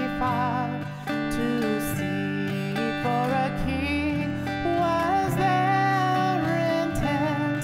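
Music: acoustic guitar strumming chords under a wavering melody line.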